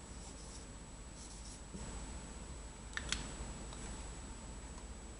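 Faint strokes of a marker writing on a whiteboard, then two quick clicks about three seconds in, over a low steady hum.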